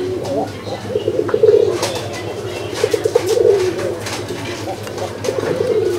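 Domestic pigeons cooing: three bouts of rolling, warbling coos, each about a second long.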